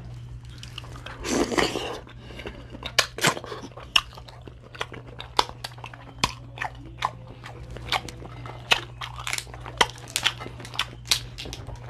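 Dungeness crab being eaten close to the microphone: shell crunching and cracking with chewing, a run of sharp cracks about one or two a second, loudest about a second in. A steady low hum runs underneath.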